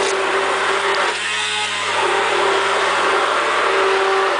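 Electric hand-held immersion blender running steadily in a bowl of pancake batter, its motor tone wavering briefly about a second in as it churns the batter.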